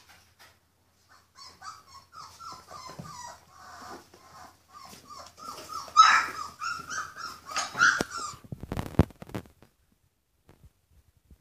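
Rhodesian Ridgeback puppies yipping and whimpering in play, a quick run of short high calls from about a second in, loudest around six seconds, stopping after about eight seconds. A few dull thumps follow.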